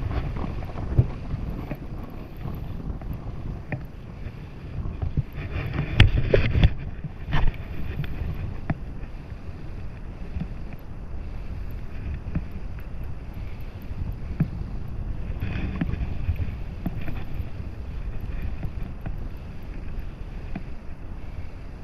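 Wind buffeting the microphone, a steady low rumble over the lake, with a few sharp knocks about six to seven and a half seconds in.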